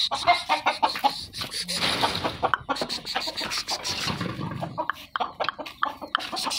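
Hens and a rooster clucking, with scattered sharp knocks and rustling throughout.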